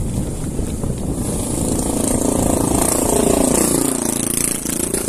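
A motor vehicle's engine passes close by: its note rises, then drops away about four seconds in, over wind rumble on the microphone.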